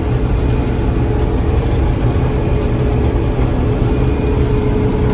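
John Deere 4400 combine running steadily while harvesting corn: a constant engine drone with a steady whine from the machinery over it.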